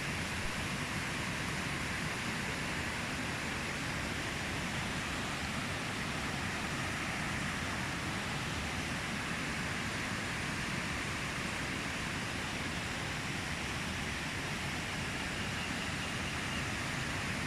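River water rushing in a steady, unbroken flow, the river running high and fast from heavy rain.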